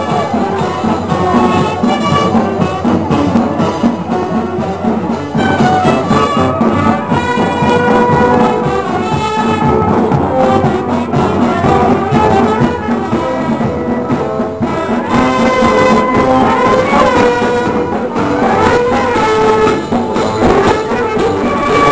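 Marching brass band playing a tune, with sousaphones, trumpets, trombones and saxophones.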